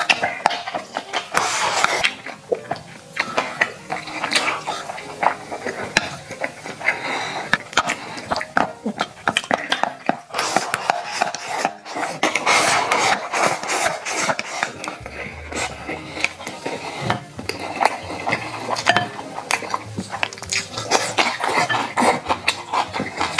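Close-up eating sounds: chewing and slurping noodles, with many sharp clicks of wooden chopsticks against a stainless-steel bowl.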